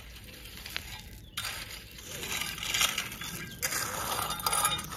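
A rake dragged through fine crushed gravel, a gritty scraping and rattling of stones that grows busier about a second and a half in.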